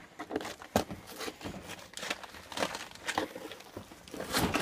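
Cardboard box flap being pried and pushed at with a small tool, giving irregular crinkling, scraping and clicking of cardboard.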